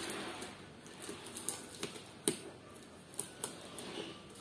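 Cardboard packaging being handled and opened: scattered clicks and light rustling, with a sharper tap about two seconds in.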